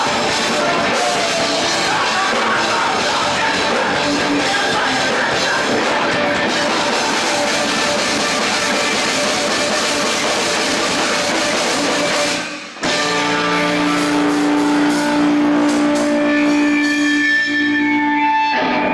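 Live rock band playing loud, with electric guitar and drums. About two-thirds of the way through the playing breaks off abruptly, and a held chord of steady ringing notes sustains to the end of the song.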